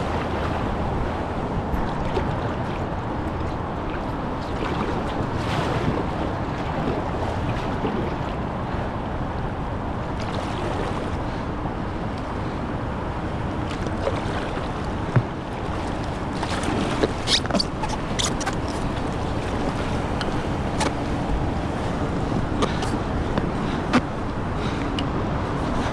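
River water rushing and splashing steadily around a kayak, with a run of short, sharp splashes or knocks in the second half.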